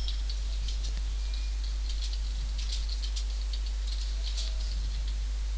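Steady low electrical hum on the recording, with faint, irregular clicks of a computer mouse being handled and clicked.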